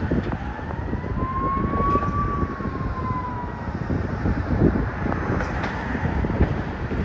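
Wind buffeting the microphone, with a single siren wail that rises and falls once over about three seconds, about a second in.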